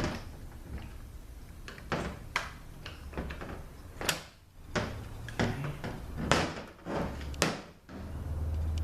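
Metal parts of a disassembled Ford 6R80 transmission valve body being turned over and handled on a workbench: a string of sharp clacks and short scraping sounds.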